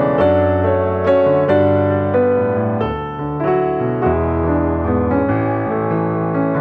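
Background piano music: struck notes of a melody over bass notes that change about once a second.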